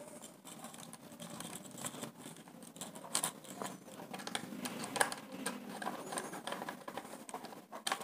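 Small screwdriver working the terminal screw of a modular two-way switch to clamp a wire, with faint irregular scratching and small clicks; one sharper click about five seconds in.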